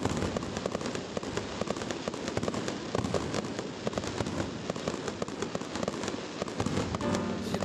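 Fireworks display going off in quick succession: a dense, irregular run of sharp cracks and pops from bursting shells.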